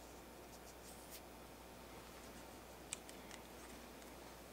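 Near silence: faint room tone with a few light ticks and scratches, the sharpest a single click about three seconds in.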